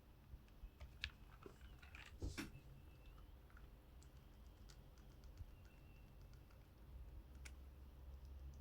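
Faint clicks and rattles of low-profile mechanical keyboard keycaps being wobbled by a finger on their switches, with a few sharper clacks about a second in, around two seconds in and near the end.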